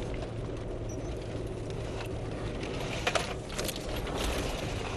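Four-wheel-drive vehicle driving along a rough dirt track, heard from inside the cab: a steady low engine hum with the cab rattling over the ruts, and a couple of sharp knocks about three seconds in.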